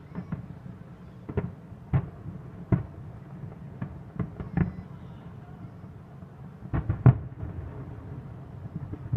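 Distant fireworks shells bursting: about nine irregular booms, the loudest pair about seven seconds in.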